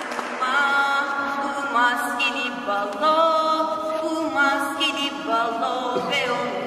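Voices singing unaccompanied, a tune of long held notes that moves from pitch to pitch.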